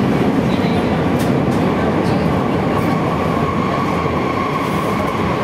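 Sendai Subway Tōzai Line linear-motor train running, heard inside the passenger car: a steady running rumble, with a whine coming in about halfway through.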